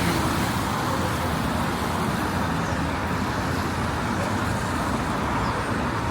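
Steady road traffic noise, an even wash of passing cars with no single event standing out.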